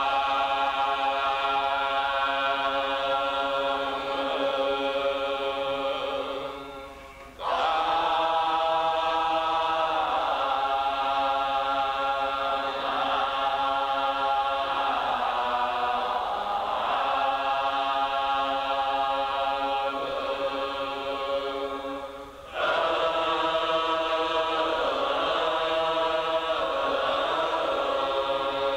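A group of voices chanting together in long held tones, with no percussion; the chant trails off and starts again twice, about a quarter of the way in and again about three quarters through.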